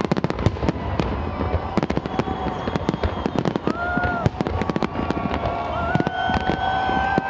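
Aerial fireworks going off: a dense run of bangs and rapid crackling as gold and white crackle shells burst overhead.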